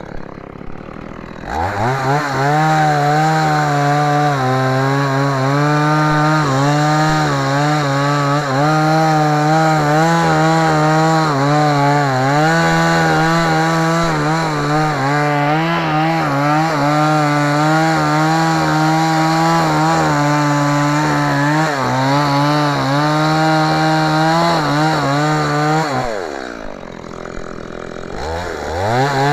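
STIHL MS 170 two-stroke chainsaw revving up about a second and a half in and held at high revs while sawing through mango wood, its pitch wavering under the load. Near the end the revs drop briefly, then climb again.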